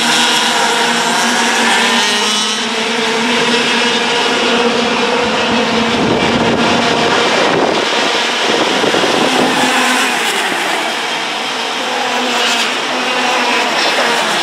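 Several Mini-class racing kart engines at high revs, their notes overlapping and gliding up and down in pitch as the karts run past in a pack.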